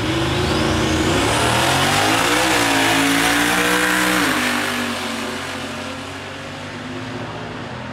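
A drag-racing car and a pickup truck launching off the line together, engines at full throttle. The engine note climbs, drops at gear changes about two and a half and four seconds in, then fades as the vehicles run away down the strip.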